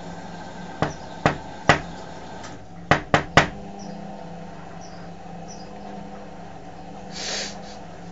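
Knocking on a window pane: three sharp raps, a short pause, then three more in quicker succession.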